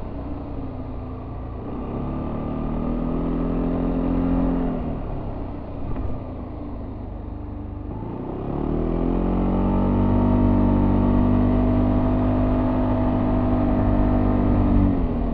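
Yamaha Tricity 300 scooter's stock-exhaust single-cylinder engine heard on board while riding: revs rise and fall over the first few seconds and stay low for a few more. Then the engine revs up about eight seconds in and holds steady under the automatic transmission before easing off near the end.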